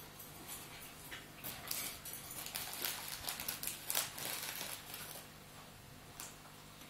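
Staffordshire bull terrier and pup play fighting on a rug: scuffling and a soft patter of paws, with short clicks and knocks. It goes quieter over the last couple of seconds.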